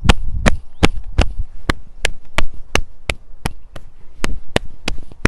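Palms slapping the body in a rhythmic qigong self-patting massage, an even train of sharp pats about three a second.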